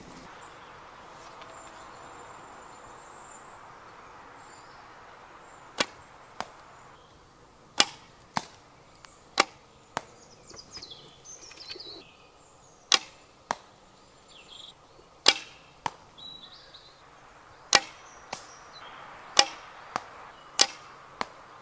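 Archery with a wooden longbow at a straw target: a series of about fifteen sharp snaps and thuds from bow releases and arrow strikes, many coming in pairs about half a second apart.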